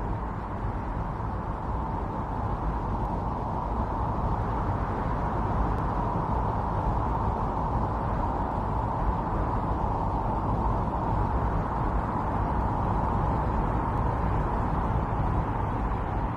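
Strong blizzard wind blowing steadily, a deep rushing noise that swells and eases slightly.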